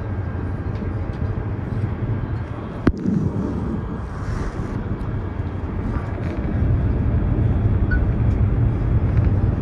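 High-speed train cabin noise while running at speed: a steady low rumble and rush, with one sharp click about three seconds in, growing louder about two-thirds of the way through.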